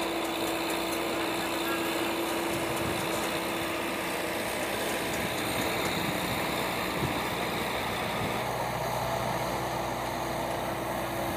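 Diesel engine of an ACE 12XW pick-and-carry crane running steadily while it carries a slung bundle of steel rebar. It is a steady hum whose tone shifts slightly about eight seconds in.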